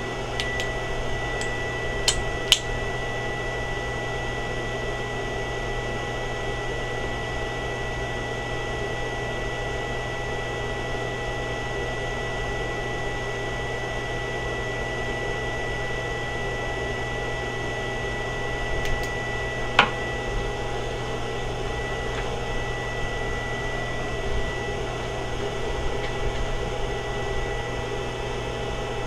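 Steady hum of a running home-built SCR pulse circuit and its small cooling fan, with a steady high-pitched tone over it. A few faint clicks come in the first few seconds, and a sharper click about twenty seconds in.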